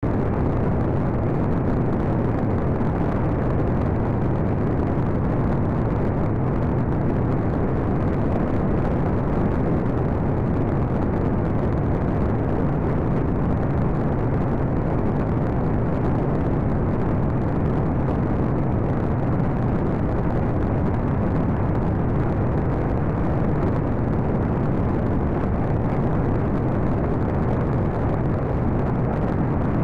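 Steady drone of a small propeller plane's engine and the rush of air in flight, heard from a camera on board.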